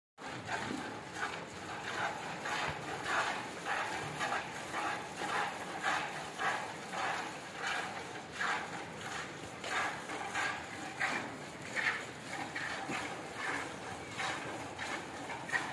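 A Holstein cow being milked by hand into a plastic bucket: rhythmic squirts of milk hitting the bucket, about two a second.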